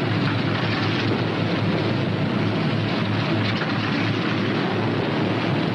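Northrop P-61 Black Widow's Pratt & Whitney R-2800 radial engines running steadily on the ground during warm-up, a constant loud rumble heard through an old, noisy film soundtrack.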